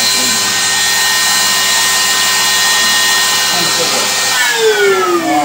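Bosch 1-horsepower router serving as a CNC spindle, running at full speed with a steady high whine, then switched off about four seconds in and spinning down, its pitch falling steadily.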